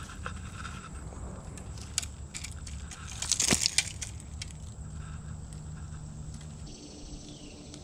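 Metallic clicks and jangling as a fish grip and fishing tackle are handled, with brushing and rustling that is loudest about three and a half seconds in, over a low steady rumble.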